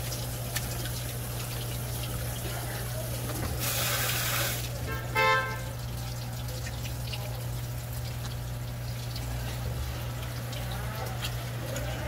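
Water from a tap spraying at a sink for about a second, around four seconds in, followed by a short pitched squeak. Underneath, a steady low hum and light clicks of handling.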